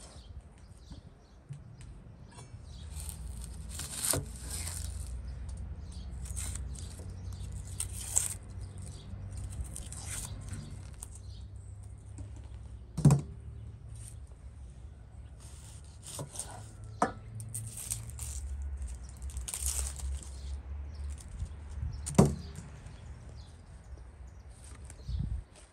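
Onions being peeled and cut with a knife on a wooden board: papery onion skins rustle and crackle, broken by about five sharp knocks of the blade on the board.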